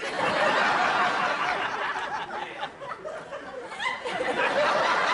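Studio audience laughing: a crowd burst that starts suddenly, dips slightly midway and swells again about four seconds in.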